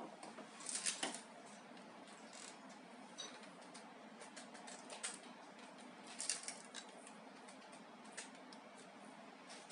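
Faint scratching and light clicks of a pen marking screw-hole positions on a wall through a plastic mounting bracket, in a few short bursts, the loudest about a second in and again after six seconds.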